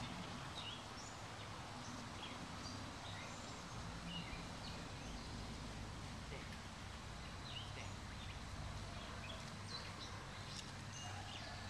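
Outdoor ambience: wild birds chirping, short scattered calls, over a steady low hum.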